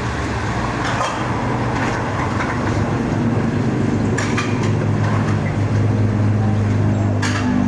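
A motor vehicle engine running steadily, its pitch rising a little near the end as it speeds up, with a few sharp clicks over it.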